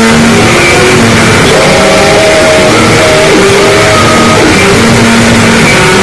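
Harsh noise music: a dense, distorted wall of noise held at full loudness, with short held tones popping in and out at scattered pitches.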